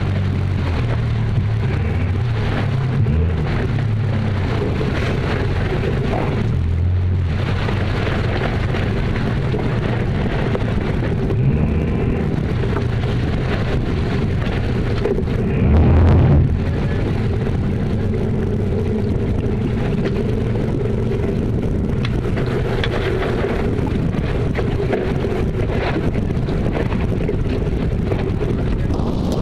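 RNLI rigid inflatable lifeboat's outboard engines running steadily while manoeuvring, with wind buffeting the microphone. A short louder surge comes about sixteen seconds in.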